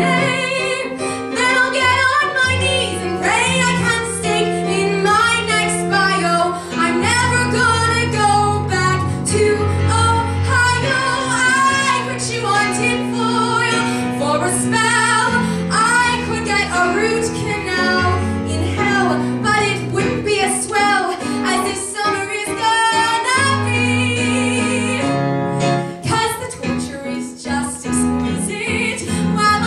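A woman singing a musical-theatre song with live keyboard accompaniment.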